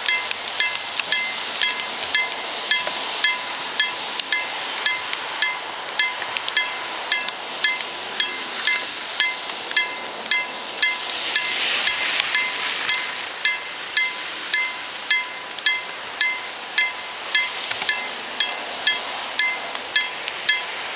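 KLD-40 railroad crossing bell of a COB-63A crossing system striking steadily, about one and a half strokes a second, each stroke ringing briefly: the crossing's warning that a train is coming. About halfway through, a rushing hiss swells and fades.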